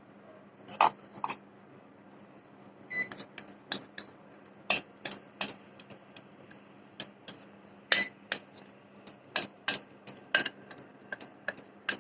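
A spoon clinking and scraping against a bowl in a run of irregular sharp clicks, as thick cake batter is scraped out into a baking tin.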